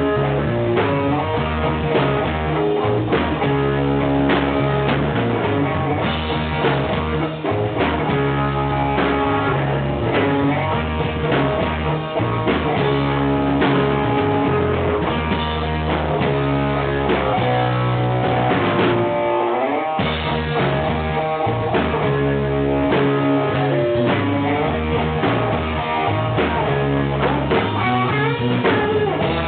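A blues band playing live: electric guitar over bass guitar and a drum kit.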